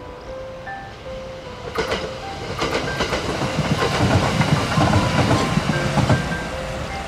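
Kintetsu electric train crossing a concrete viaduct, its wheels clattering over the rail joints with a low rumble. The clatter builds from about two seconds in and is loudest in the second half. Light background music of short bell-like notes plays throughout.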